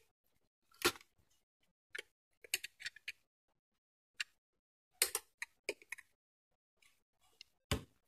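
Small clicks and taps of a screwdriver and fingers working on a computer circuit board, coming singly and in irregular little clusters. A heavier knock comes near the end.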